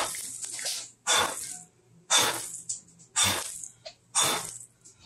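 A person blowing five hard puffs of air through pursed lips, about one a second, over freshly cut soap bars in a wire soap cutter.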